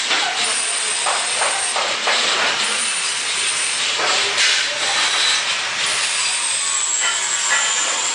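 A loud, steady hissing noise from metalworking in a fabrication shop, with a thin high whine over it that drops slightly in pitch and breaks off a few times.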